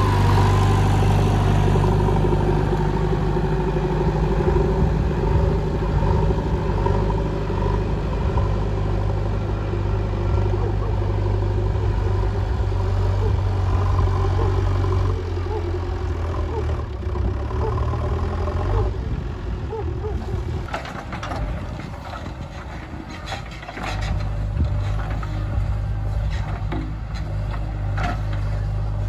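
JCB 3DX backhoe loader's diesel engine running steadily. Its level drops about halfway through and picks up again near the end, with a run of sharp knocks and scrapes in the later part.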